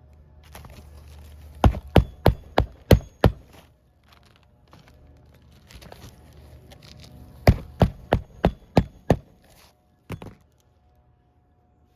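Hammer blows: two runs of about six quick, sharp strikes each, roughly three a second, then one more strike near the end.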